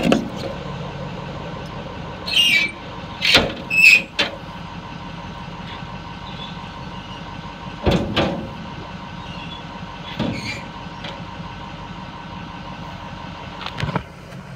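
Scattered knocks and clunks of handling as the crane's wired remote controller is put away, two of them with a brief squeak, over a steady low hum.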